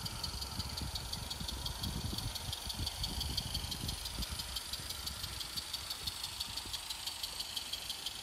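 Small live-steam garden-railway locomotive running with a train of wagons, its exhaust chuffing in a quick even beat of about four to five puffs a second. A low rumble runs underneath.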